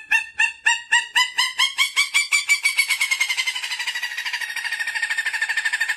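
An animal call: a fast series of short pitched notes that speeds up into a rapid trill, sinking slightly in pitch.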